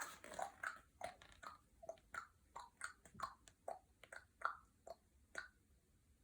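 Faint chewing: a quick series of small crunches, about three a second, that stops near the end.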